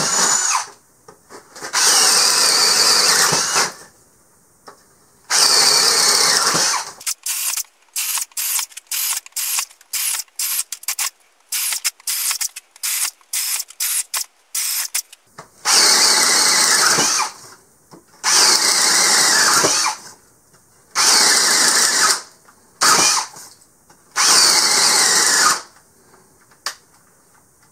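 Hart 20-volt brushless drill boring 7/8-inch holes through a 2x4 with a spade bit, the motor running up under load in bursts of one to two seconds, one hole after another. In the middle comes a run of many very short stop-start pulses on the trigger.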